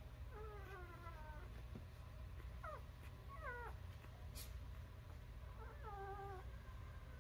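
Newborn puppies whimpering and squeaking in short, high, cat-like cries. There is a longer falling cry near the start, two quick squeaks about three seconds in, and another whimper near the end, over a low steady hum.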